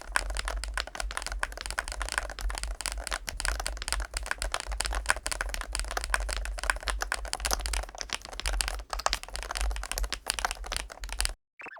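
Fast typing on a MoeeTech GLITTER65 HE Pro keyboard with magnetic Hall-effect switches: a dense, continuous stream of key clacks over a low hum. It stops suddenly near the end.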